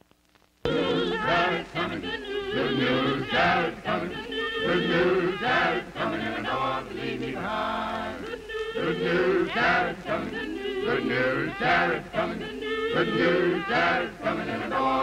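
A choir singing, cutting in suddenly about half a second in after near silence, with a low steady hum underneath.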